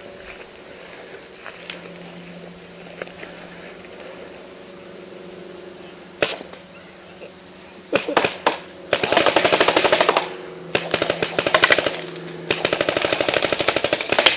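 Paintball marker firing: a single shot, then a few more, then two long rapid strings of shots in the second half.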